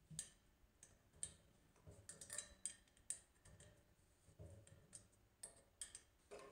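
Small Allen key clicking and ticking against a stainless steel sink leg socket as a set screw is turned to tighten the leg: faint, irregular metal clicks.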